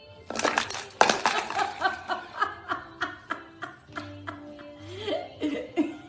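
Music with a fast, regular beat of sharp, pitched strikes, about three a second, starting just after the singing before it; a rising note comes in near the end.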